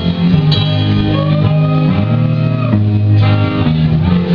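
Live rock band playing, led by guitar, with held chords and a few sliding notes.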